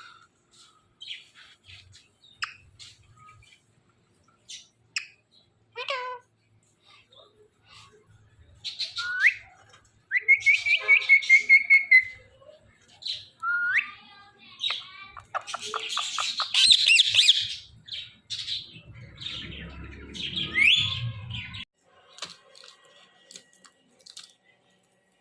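A pair of ring-necked parakeets chirping and calling in short whistled notes. About two-fifths of the way in comes a fast run of chattering, and the loudest harsh squawks come about two-thirds of the way in.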